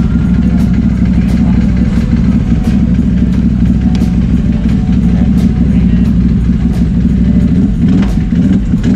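Steady low vehicle rumble, with a sharp regular click about every two-thirds of a second.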